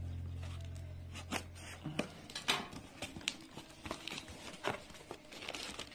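Cardboard box being opened by hand: scattered faint taps, scrapes and rustles as the packing tape is slit with a knife and the flaps are pulled open.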